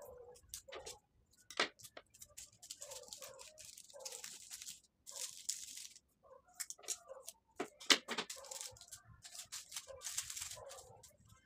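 Hands handling craft materials on a tabletop: rustling and crinkling of ribbon and tape, with sharp taps and clicks, the loudest about a second and a half in and about eight seconds in. Short, low animal calls repeat in the background throughout.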